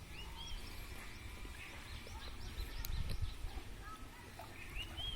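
Birds chirping in short arched notes, the clearest about half a second in and again near the end, over a low steady rumble.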